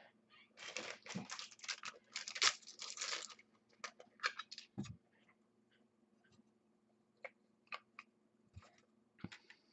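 Plastic and foil trading-card pack wrappers crinkling as they are handled, for about three seconds. This is followed by scattered light clicks and taps of cards being handled and set down.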